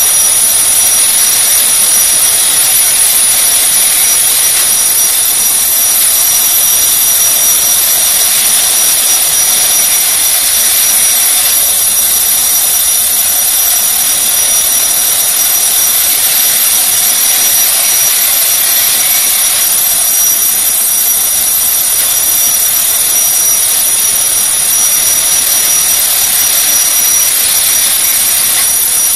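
Clockwork motor of a J. Chein Disneyland Roller Coaster wind-up tin toy running, a steady whir with a high whine, as the tin car goes round the track.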